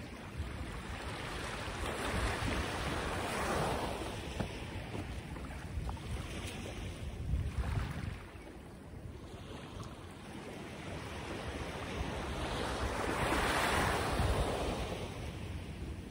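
Surf washing in, swelling and easing off three times, with wind rumbling on the microphone.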